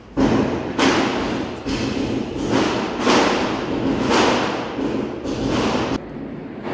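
Firecrackers going off one after another: about eight deep bangs in quick succession, each with a fading echo, stopping abruptly about a second before the end.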